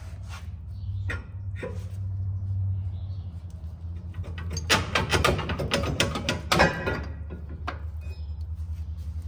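Metal clicks and clinks from hand work on parts inside an open truck rear differential housing, bunched together in a quick flurry about two-thirds of the way in, over a steady low hum.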